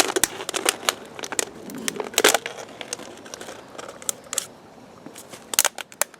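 Irregular sharp clicks and crackles from a minnow trap with rocks weighting it being handled, with louder clatters about two seconds in and again near the end.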